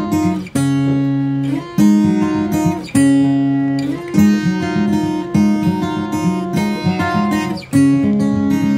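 Background music: acoustic guitar strumming chords, a new chord struck about every second.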